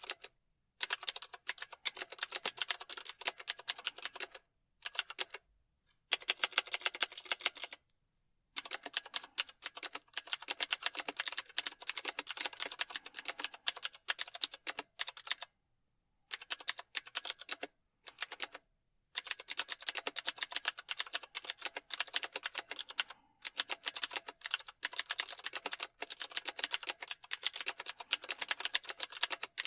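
Computer keyboard being typed on: fast runs of key clicks lasting a few seconds each, broken by brief pauses.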